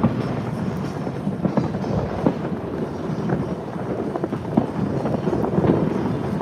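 Distant fireworks popping and rumbling in a dense, continuous string of small bangs, with wind buffeting the microphone.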